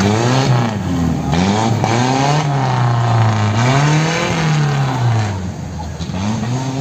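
Off-road 4x4 engine revving up and down over and over under load, the revs rising and falling every second or so, getting somewhat quieter near the end.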